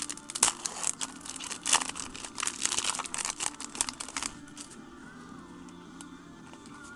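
Foil trading-card pack wrapper crinkling and tearing as it is opened: a quick run of rustles for about four seconds that then dies down to faint handling.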